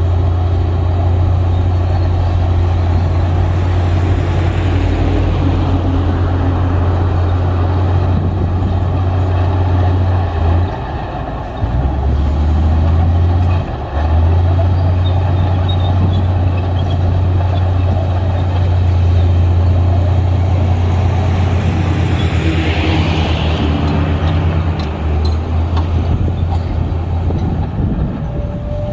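Heavy diesel engine of earthmoving machinery running hard with a steady deep drone; it drops off briefly about ten seconds in and again near fourteen seconds, then picks back up. A short hiss rises and fades about two-thirds of the way in.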